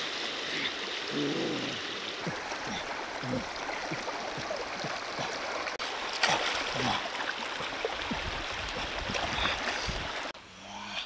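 Shallow river water rushing over stones, with splashing and sloshing as a pig's head is washed by hand in the current. The water sound cuts off suddenly near the end.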